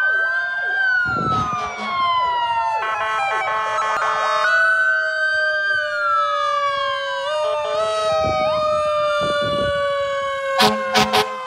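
Police car and fire engine sirens wailing together, several tones slowly falling and rising against each other. A long horn blast sounds about three seconds in, and three short horn blasts near the end.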